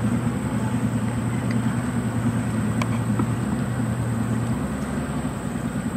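Boat motor running steadily with a low hum; its lowest tone drops away about four and a half seconds in.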